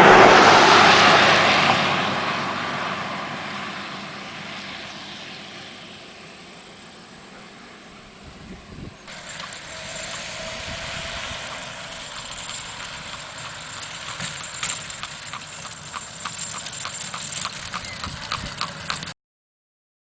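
Hooves of a team of Haflinger-Morgan cross horses clopping at a steady walk, a few strikes a second, in the second half. Before that a loud rushing noise fades away over the first several seconds.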